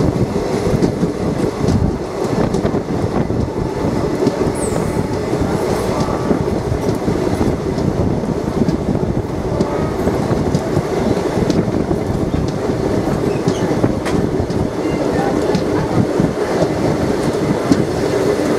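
Moving passenger train heard from on board: the steady running rumble of the coach's wheels on the rails, with frequent light clicks from the track.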